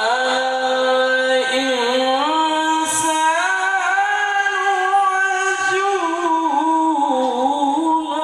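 A man's voice reciting the Qur'an in the melodic tilawah style: one long phrase drawn out on sustained notes, the pitch rising and falling in ornamented turns, with a short break about three seconds in.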